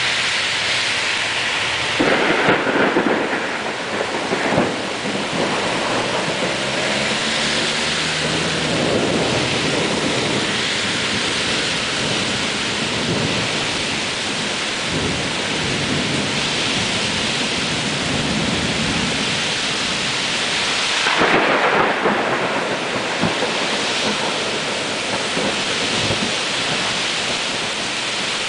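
Heavy rain pouring steadily in a thunderstorm, with two louder surges, one about two seconds in and another about twenty seconds later.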